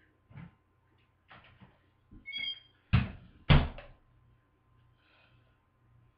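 A few light knocks and a brief squeak, then two loud thumps about half a second apart, close to the microphone.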